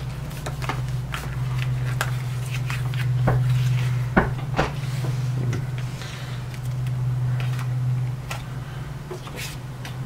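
Light clicks and knocks of the replacement UPS battery pack being handled and its connecting tabs fitted, with the sharpest knocks about four seconds in, over a steady low hum.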